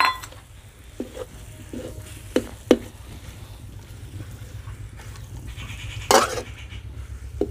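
Metal spatula scraping and knocking against a metal kadai as lumps of cold, stiff khoa are broken up and stirred over the fire, with a few sharp clinks in the first three seconds. A louder, longer noise comes about six seconds in.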